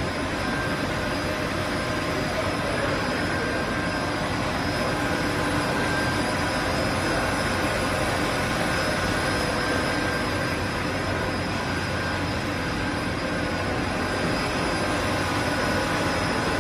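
Steady drone of running machinery on a margarine and shortening production line, a dense even noise with a few faint steady whines in it.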